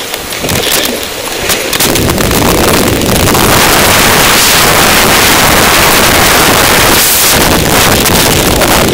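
Heavy wind buffeting a camera microphone on a fast mountain-bike descent along a dirt trail, swelling to a loud, steady rush about two seconds in, with a few sharp knocks and rattles from the rough ground near the start.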